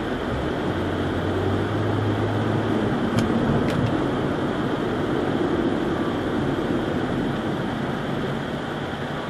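Steady road and engine noise inside a moving car's cabin, as picked up by a dashcam's built-in microphone, with a low engine hum for the first couple of seconds and two faint clicks a little after three seconds in.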